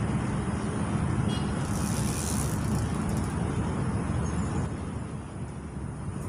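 Steady low rumble of road traffic, with a brief high hiss about two seconds in.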